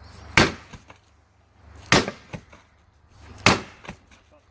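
Heavy blows struck against an old rusted safe as its side is beaten in to force it open: three strikes about a second and a half apart, each followed by a lighter knock.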